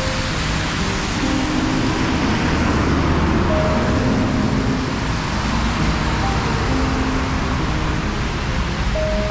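Road traffic on a city street, a steady rush of tyre and engine noise that swells slightly a few seconds in, under soft background music with long held notes.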